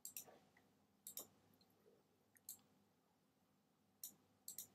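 A few faint computer mouse clicks, several in quick pairs, with near silence between.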